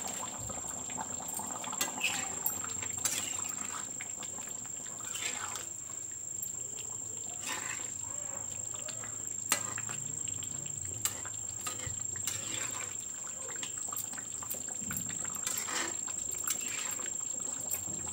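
Thick curry simmering in a metal kadai, bubbling with many small sharp pops, and a metal spatula stirring and scraping through it in the second half. A steady high-pitched tone runs underneath.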